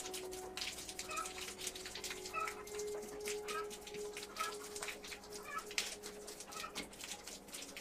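Short animal calls, repeated about once a second, over scattered sharp clicks and taps and a faint steady hum.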